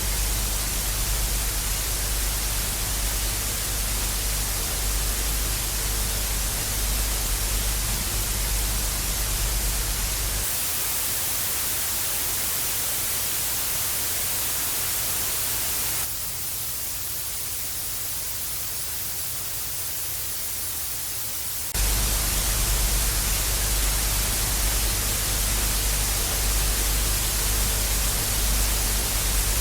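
Analog TV static hissing steadily, with a low electrical hum under it. About a third of the way in it cuts to a thinner hiss without the hum, then to a quieter, higher hiss, and about three quarters through it switches back to hiss with hum.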